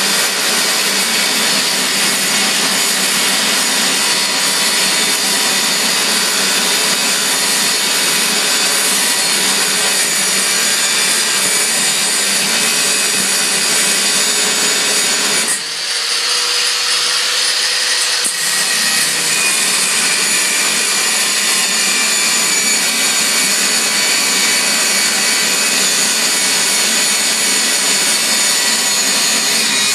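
Angle grinder cutting through a quarter-inch steel bolt: a steady, loud grinding with the motor's high whine running through it. About halfway the grinding drops away for about three seconds, leaving only the whine, then bites in again.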